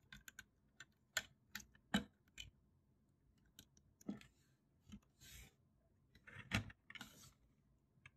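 Plastic Lego bricks clicking as a small piece is pressed onto a Lego police car model: a string of sharp, separate clicks and snaps, loudest about two seconds in and again past six seconds, with brief rubbing of fingers on the plastic.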